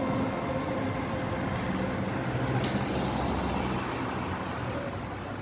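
City street traffic: a car driving past close by, a low engine-and-tyre rumble over general road noise.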